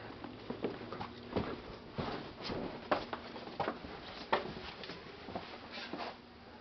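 Footsteps walking across the floor of an empty room, irregular steps about every half second to a second, over a faint steady hum.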